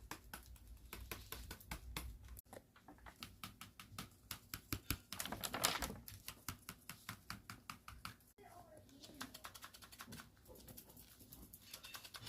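Paper dragon puppet's folded paper jaws being snapped open and shut over and over: a fast run of dry paper clicks, several a second, with one louder rustling burst a little past the middle.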